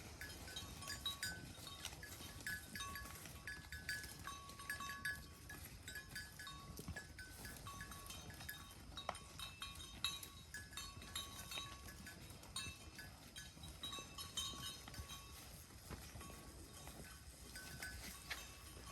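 Cattle eating hay: quiet crunching and rustling with many small clicks, and short ringing notes that come again and again throughout.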